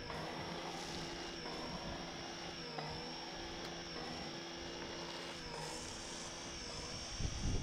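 Portable pressure washer running steadily, a motor-and-pump hum with spray hiss, as snow foam is sprayed through a foam lance. A short louder rumble comes near the end.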